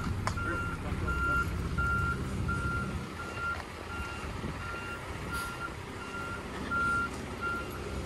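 Peterbilt front-load garbage truck with a Heil body backing up, its reversing alarm beeping steadily at one pitch, about two to three beeps a second, over the low rumble of its diesel engine. The engine rumble eases about three seconds in.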